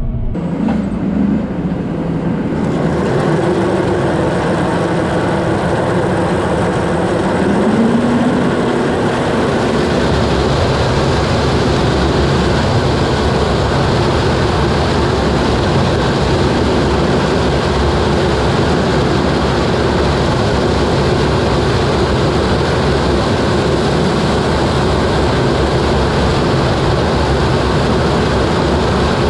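Combine harvester running under way, with engine and threshing machinery making a loud, steady din. The engine pitch rises twice in the first several seconds, then holds steady.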